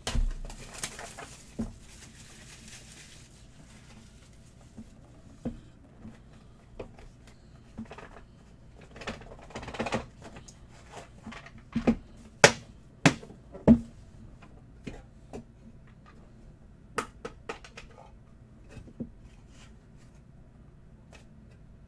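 Handling of a trading-card box and clear hard plastic card cases: a crinkling rustle of the box's wrapping being torn open over the first few seconds, then scattered clicks and taps of plastic cases and cardboard being set down and opened, loudest in a quick cluster about twelve to fourteen seconds in.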